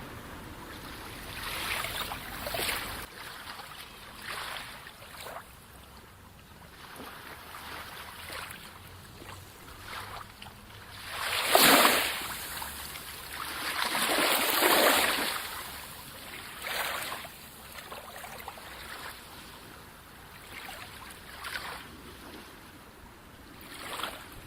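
Calm sea waves washing in on the shore in irregular swells. The two loudest breaks come about halfway through, with softer wash between.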